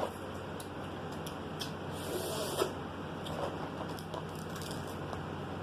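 Crab shells being cracked and picked apart by hand: scattered small clicks and snaps, with a short crackling rustle about two seconds in.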